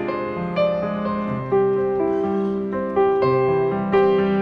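Background music: slow piano with held notes struck one after another.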